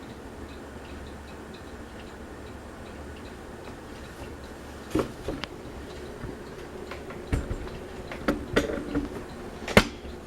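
Fasco Gulf Stream ceiling fan running on high with a low hum and a regular light ticking. In the second half several sharp clicks and knocks come in, the loudest near the end.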